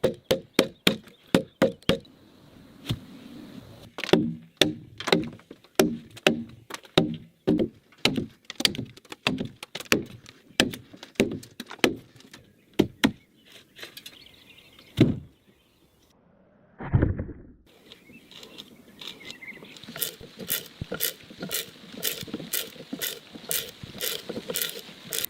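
Hand tools striking wood while logs are worked for a cabin wall: a long run of sharp knocks, about two or three a second, with a pause partway through and one heavier, deeper thud a little past the middle. Near the end the strikes turn quicker and brighter.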